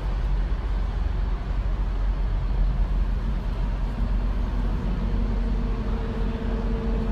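Street traffic noise: a steady rumble of road traffic, with a steady low hum joining about four seconds in.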